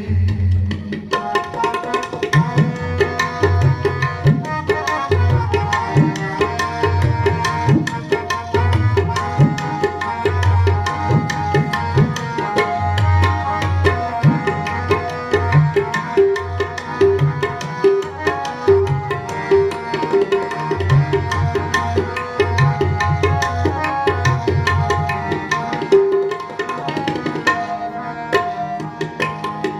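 Instrumental interlude of devotional kirtan: tabla drumming in a steady rhythm, deep bass strokes and crisp treble strokes, under a melody of held notes.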